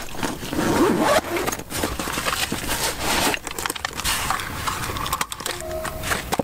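A nylon camera backpack being unzipped and rummaged through, with zipper rasps, fabric rustling and the clicks and scrapes of a hard-shell drone case being lifted out and opened.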